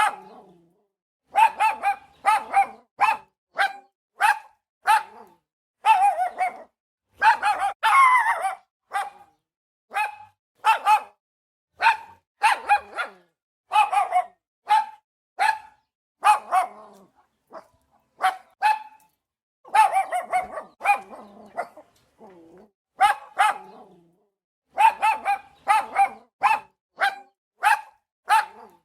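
A dog barking in quick runs of short barks, about two to three a second, with brief pauses between runs and one longer, wavering bark about eight seconds in.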